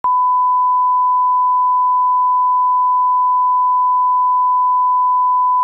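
A single steady electronic tone at about 1 kHz, one pure pitch that switches on abruptly and holds without any change.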